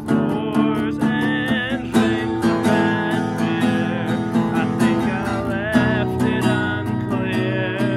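Acoustic guitar strummed steadily, with a harmonica in a neck rack playing a wavering melody over it.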